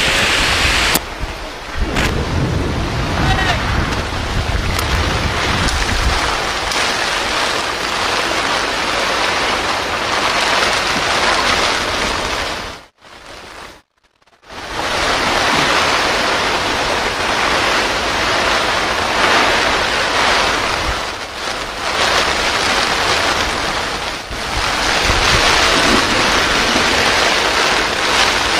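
Heavy rain with wind buffeting the microphone, a steady loud hiss that drops out almost completely for about a second and a half halfway through.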